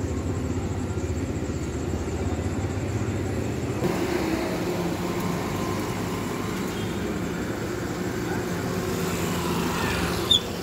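Steady low rumble of outdoor street ambience at night, its tone changing at a cut about four seconds in, with a short sharp click near the end.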